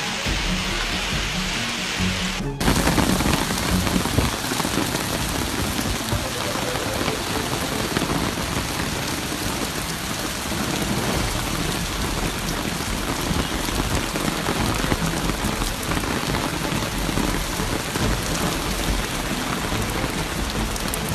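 Heavy rain beating down as a dense, steady hiss that cuts in abruptly about two and a half seconds in.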